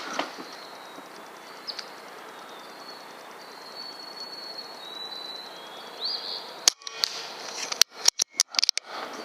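Rifle shots at targets, one just at the start and another about seven seconds in, each heard as a quick cluster of sharp cracks. Faint bird chirps in between.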